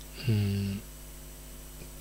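A man's short, level-pitched hesitation sound ('ehh') lasting about half a second, then only a faint steady hum.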